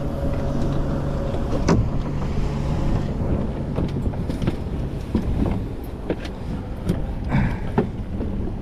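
Steady low mechanical hum of the boat's motor, its steadiest tone stopping about three seconds in, with scattered knocks and clicks as fish are handled on the deck.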